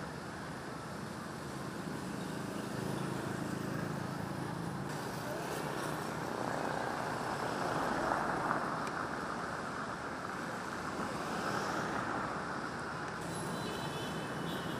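City street traffic: a steady hum of passing vehicles that swells and fades as they go by, with a few short horn beeps near the end.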